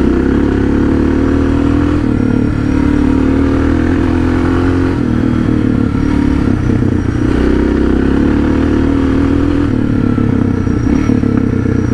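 Suzuki DR650's single-cylinder four-stroke engine running steadily while riding, its pitch dipping briefly a few times as the throttle eases and opens again.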